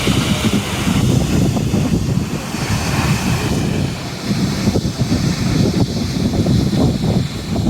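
Rushing roar of the Lower Düden waterfall pouring off the sea cliff into the sea, with wind buffeting the microphone in uneven gusts.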